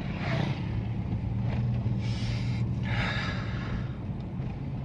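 Toyota Yaris driving on a concrete road, heard from inside the cabin: a steady engine hum with a few brief hissy swells. No clunks or creaks from the front suspension, whose loose lower-arm bushing bolts have just been repaired.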